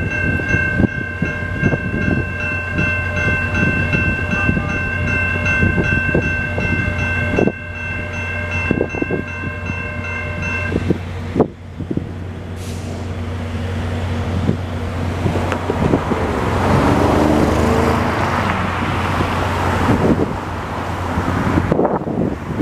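Level-crossing warning bell ringing steadily over a low steady hum from the idling locomotive. The bell cuts off about eleven seconds in as the gates lift, and then cars drive across the crossing, their tyre and engine noise swelling.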